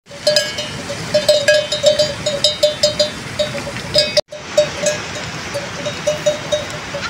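Metal bell hung at a grazing water buffalo's neck, clanking irregularly, a few strikes a second. The sound cuts out for an instant a little past four seconds.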